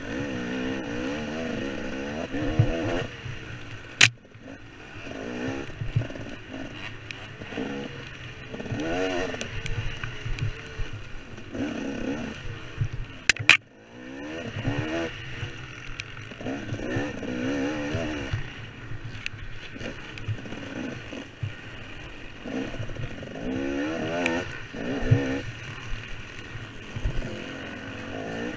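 KTM 300 two-stroke dirt bike engine revving up and down over and over as it is ridden through mud and ruts. Two sharp knocks come about four seconds in and again midway, each followed by a brief dip in the engine.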